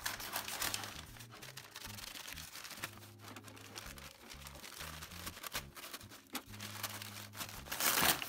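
Newspaper wrapping crinkling and rustling in irregular bursts as hands pull it open, with the loudest crumple near the end.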